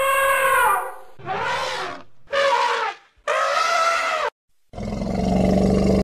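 African elephant trumpeting: a long pitched call that fades about a second in, then three shorter trumpets in quick succession. Near the end comes a lower, rough call that cuts off abruptly.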